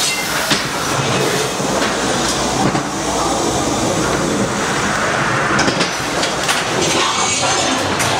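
Ghost train car rattling along its steel track through the dark ride, a steady noisy din with a few sharp knocks in the second half.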